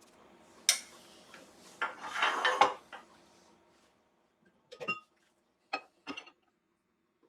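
Metal woodturning tools and lathe fittings being handled, clinking and clattering: a sharp click about a second in, a burst of clatter around two seconds, then a few separate clicks.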